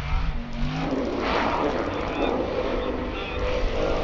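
Formula Offroad buggy's engine revving hard as it drives into a river, its pitch rising in the first second. Then comes a rushing wash of water thrown up by the tyres over a steady engine rumble.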